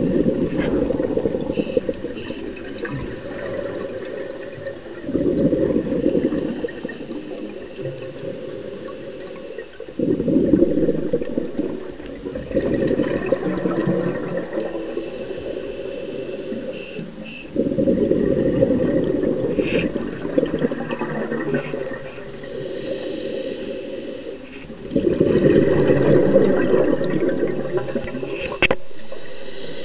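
Scuba diver breathing through a regulator underwater: exhaled bubbles rush out in long bursts about every five seconds, with quieter stretches between breaths.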